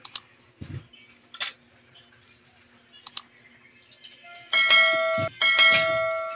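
Subscribe-button overlay sound effect: a few sharp mouse-click sounds, then two ringing bell dings in quick succession near the end.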